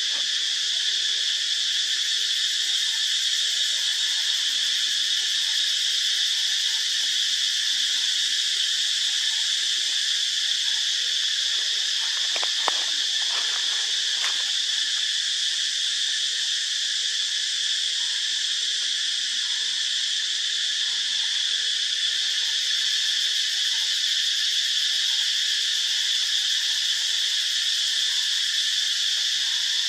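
Dense, steady insect chorus: a loud, high-pitched buzz that holds without a break, with a few faint clicks about halfway through.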